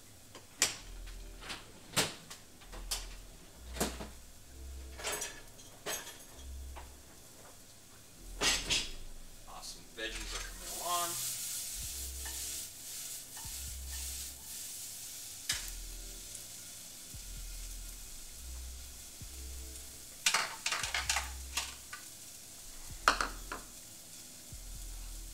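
Kitchen handling sounds: a series of separate sharp clicks and knocks of utensils and dishes on the counter and stove, with a brief hiss a little before the middle.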